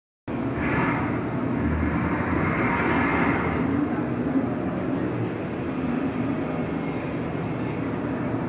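Steady background din of a large exhibition hall: an even hum and rumble with no distinct events.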